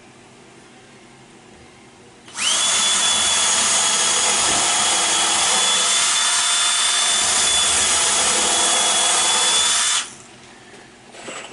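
A power tool's motor spins up quickly, runs steadily at full speed with a high whine for about eight seconds, then cuts off.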